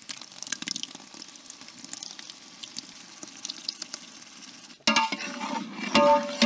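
Spiced onion-and-tomato masala sizzling and crackling in a large metal pot as curd is poured in. About five seconds in it turns suddenly louder as a long metal ladle stirs and scrapes the mixture against the pot.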